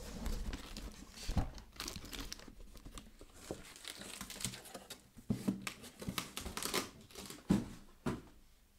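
Cardboard shipping box and its paper packing being handled: irregular crinkling and rustling, with a few soft knocks.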